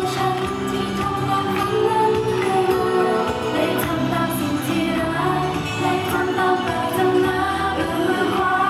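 Live pop song with a female singer's voice over backing music, heard through a venue sound system.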